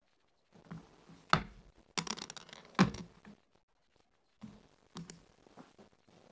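Dice and checkers on a wooden backgammon board: dice clattering and rolling, and checkers set down with sharp clacks. The loudest clacks come about a second and a half in and near three seconds, with softer clicks later.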